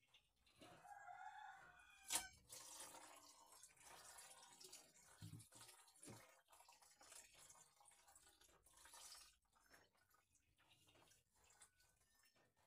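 Faint splashing and dripping water from hair washing, with one sharp knock about two seconds in. A chicken calls once near the start.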